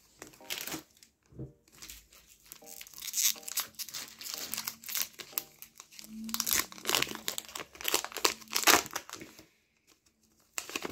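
A foil Pokémon TCG booster pack wrapper (Scarlet & Violet base set) crinkling as it is handled and torn open by hand. It gives a long run of crackling rustles that stops shortly before the end.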